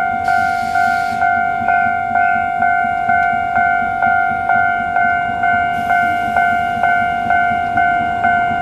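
Japanese level-crossing warning bell ringing, an electronic two-tone clang repeating about two and a half times a second. Two short bursts of hiss sound over it, one near the start and one about six seconds in.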